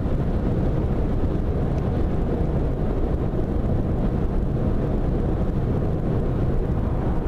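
Steady road and engine noise heard inside the cabin of a Scion tC driving at freeway speed.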